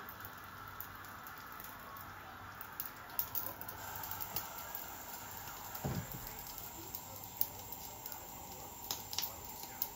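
Whole fish grilling on a wire rack over a gas burner: a steady hiss with scattered crackles and pops as its juices cook, and a single dull knock about six seconds in.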